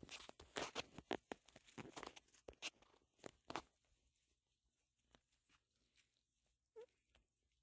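Crunching steps through frosty dry grass and fallen leaves, a quick run of crackles for the first three or four seconds, then near quiet. A brief squeak that rises in pitch about seven seconds in.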